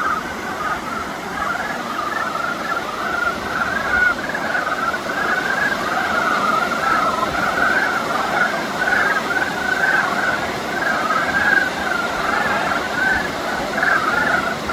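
A dense chorus of many frogs calling over one another without a break, a warbling chatter of overlapping calls.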